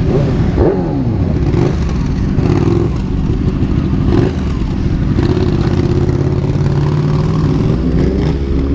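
Motorcycle engines revving, their pitch rising and falling several times over the first few seconds, then running at a steadier pitch.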